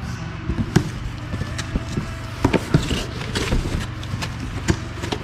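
Cardboard shipping box being opened by hand: flaps pulled back with rustling, and several knocks and taps as the box and its contents are handled.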